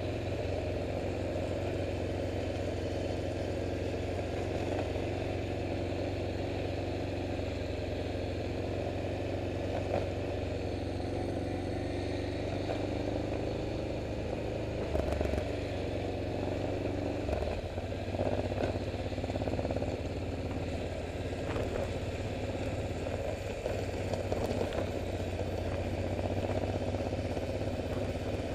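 Motorcycle engines running at low revs, a steady even drone with a few light knocks.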